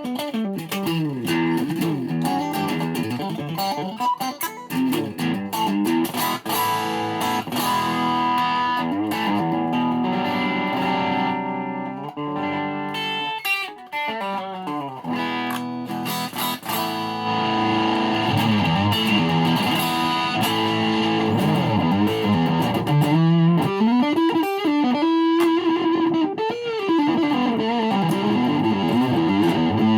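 Ibanez SA260 electric guitar played through its pickups in a sound check, a continuous run of single-note melodic lines with notes sliding and bending up and down in pitch, louder in the second half.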